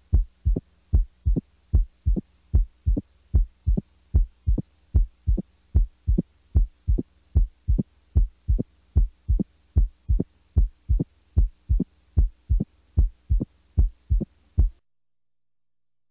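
Heart sounds heard through a stethoscope, with each second heart sound followed closely by an opening snap, a short extra sound in early diastole typical of mitral stenosis. The beats repeat steadily and stop near the end.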